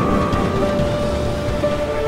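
Background music with long, sustained held notes: one tone fades out and a lower one comes in about half a second in.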